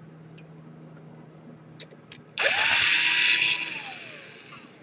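Small electric screwdriver spinning up with a rising whine about two and a half seconds in, running for about a second, then winding down as the motor slows. A few faint clicks come before it.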